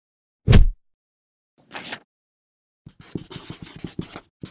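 A single thump, a brief swish, then a felt-tip marker scratching across paper in quick strokes for the last second and a half or so.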